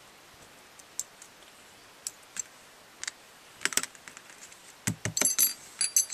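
AR-15 bolt carrier group being taken apart by hand: small steel parts clicking and clacking, a few scattered at first, then a quick cluster about five seconds in with a short metallic ring as parts knock together.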